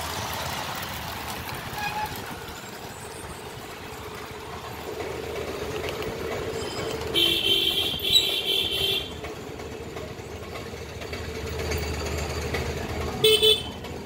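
A motor vehicle running under way, with a horn blast of about two seconds midway and two quick toots near the end.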